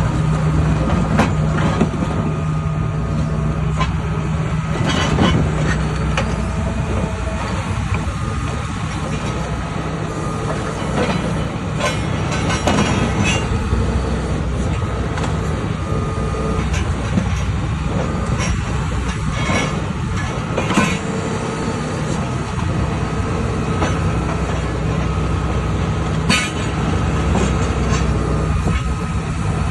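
Excavator's diesel engine running steadily under load while its hydraulic attachment works material, with irregular clanks, knocks and scraping of metal on debris.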